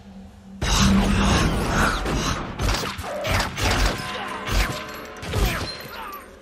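Pistol gunfire in a film action scene: a sudden loud volley starting under a second in, then about half a dozen more separate shots spread over the next few seconds, each ringing briefly.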